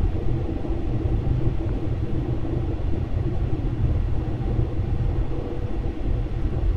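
Steady low rumble of road and engine noise heard inside a car's cabin while driving.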